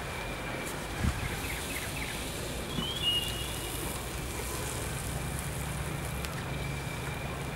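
Grilled beef being cut and handled on a stone grill, with a soft knock about a second in and another around three seconds, over a steady low outdoor hum.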